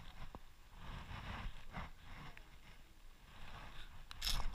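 Faint handling and water noises as a small fish hooked on a treble-hook crankbait is swung out of the water on the line and grabbed by hand, with a louder rustle near the end.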